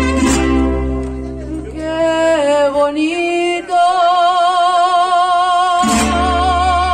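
Mariachi music: guitars and a guitarrón strum and play bass, then drop away while a singer carries a rising phrase into a long held note with vibrato. The guitars and bass come back in with a strum near the end.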